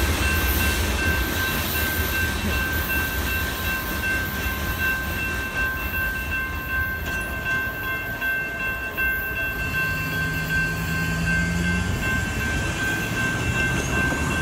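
Grade-crossing warning bell ringing steadily while the crossing lights flash, over the low rumble of a freight train moving away from the crossing.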